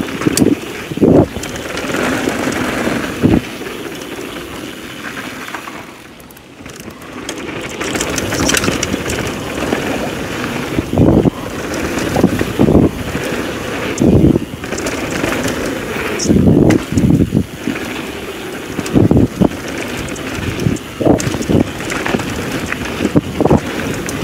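Downhill mountain bike running fast over a dirt and gravel trail: steady tyre noise and wind buffeting the microphone, broken by frequent thumps and rattles as the bike hits bumps, with a quieter stretch about six seconds in.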